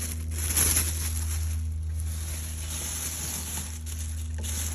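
Thin plastic dog waste bag rustling and crinkling as it is handled and fitted over a fire alarm device. A steady low hum runs underneath.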